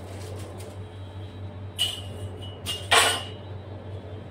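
Two short scuffing handling sounds from the piping bag and hands as piping finishes, the louder one about three seconds in, over a steady low hum.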